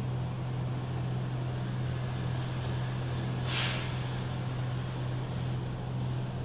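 A steady low hum of room noise, with one brief scratchy stroke of a marker on a whiteboard about three and a half seconds in.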